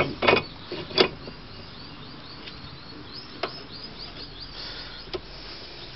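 Two sharp knocks in the first second and a few fainter ticks later, from hand-tightening the 15 mm bolts on a brake caliper hanger, with birds chirping in the background.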